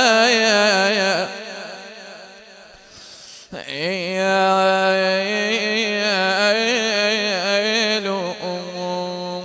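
A man's unaccompanied voice chanting an Arabic mourning lament in long melismatic notes with a wavering pitch. A phrase ends about a second in and fades away. After a pause, a new phrase starts about three and a half seconds in with a rising glide and is drawn out into a steady held note near the end.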